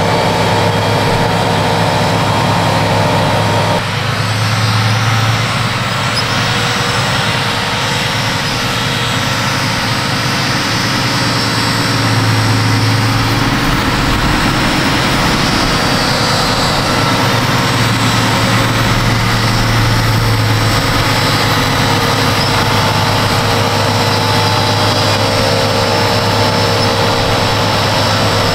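Fendt 939 Vario tractor's six-cylinder diesel engine running steadily under load while pulling a planter; the sound shifts abruptly about four seconds in.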